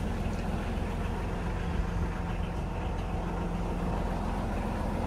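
An engine idling steadily, a low, even hum.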